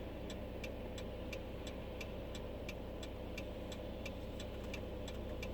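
Car turn-signal ticking evenly, about three clicks a second, over the steady hum of the car heard from inside the cabin.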